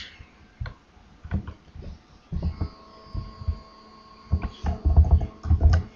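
Irregular dull low thuds and a few sharp clicks from mouse and keyboard handling at a computer desk, bunched about two seconds in and again near the end, with a faint steady hum in between.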